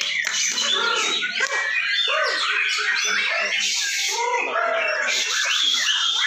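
Many caged white-rumped shamas singing at once, a dense, unbroken mix of overlapping whistles and quick chirps.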